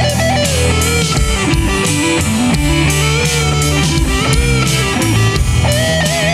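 Rock band playing an instrumental break: an electric guitar lead line sliding and bending between notes over bass guitar and drums, with a held, wavering note starting near the end.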